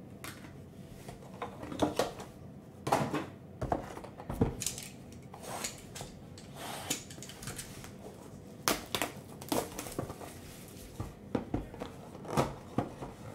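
A sealed cardboard trading-card box being opened by hand: plastic wrap crinkling and tearing, with cardboard scraping and sharp clicks at irregular moments.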